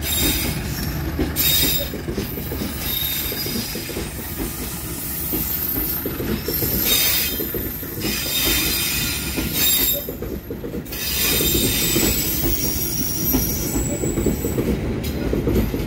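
Shunting passenger train rolling slowly over the rails, its steel wheels squealing in thin high tones that come and go over a steady low rumble.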